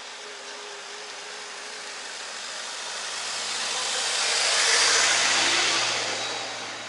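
A car driving past: its tyre and engine noise rises to its loudest about five seconds in, then fades as it moves away.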